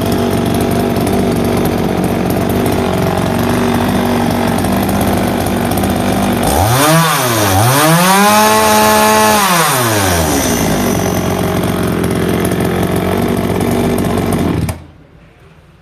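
Kyoritsu CSV3501 two-stroke chainsaw idling, revved twice around the middle: a short blip, then a higher rev held for about two seconds before it drops back to idle. Near the end the engine is switched off and stops abruptly.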